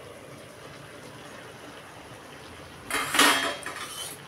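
A stainless-steel plate used as a lid is taken off a metal kadai, with a single loud metallic clatter about three seconds in. Under it runs a steady low hiss from the simmering pan on the gas flame.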